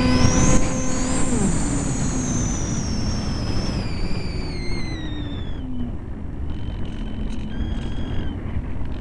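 Onboard sound of an EasyStar RC plane's brushless electric motor: its steady whine drops sharply in pitch about a second in as the throttle comes back, while a high whine slides slowly down over the next few seconds. Steady wind rush on the onboard camera's microphone runs underneath.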